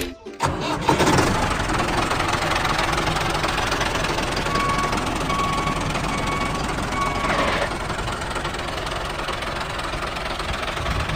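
A mini tractor's small motor runs steadily, with four short, evenly spaced beeps near the middle.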